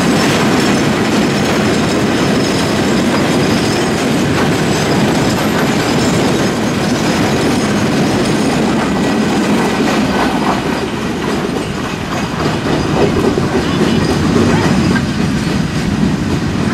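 Freight train of tank wagons passing close by, its steel wheels rumbling steadily and loudly over the rails.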